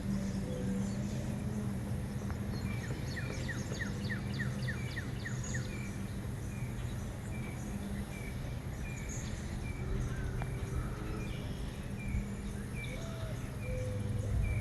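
Birds calling: a run of quick falling whistled notes, about three a second, then a single short note repeated about twice a second over a low steady hum.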